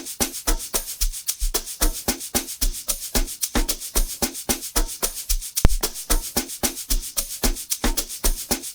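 Amapiano percussion loop: fast, even shaker strokes over deep low hits, repeating in a steady rhythm.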